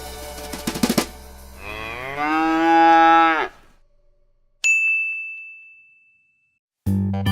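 A cow mooing once, one long call, followed by a single bright bell ding that rings out and fades. Music starts again near the end.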